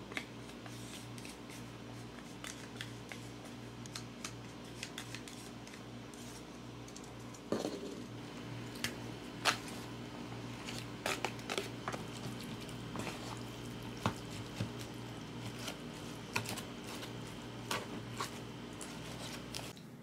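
Plastic takeout food containers being handled and opened: scattered clicks, taps and crinkles of plastic lids and wrapping, busier from about a third of the way in, over a steady low hum.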